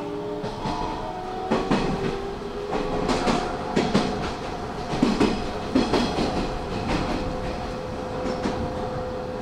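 Hanshin 5500 series electric commuter train heard from inside the car while running. Its wheels clack over rail joints, often in pairs. Early on, the traction motors' whine glides up in pitch, and a steady hum holds through the later part.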